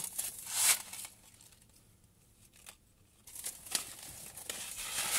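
Rustling and crinkling of fabric and paper as hands rummage through a coat pocket for a receipt, in two spells with a quieter pause in between.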